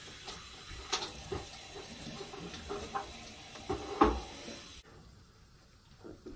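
Bathroom sink tap running, with a few sharp knocks, the loudest a little past halfway; the running water stops abruptly about three-quarters of the way through.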